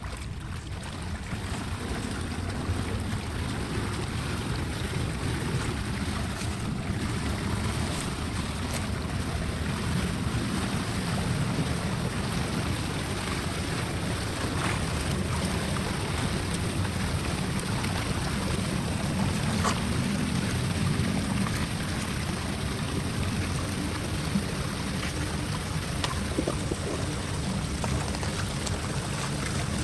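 Steady rush of floodwater flowing through a storm drain.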